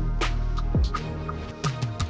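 Electronic background music with a steady beat: deep kick drums that fall in pitch over a held bass, with sharp hi-hat and snare hits.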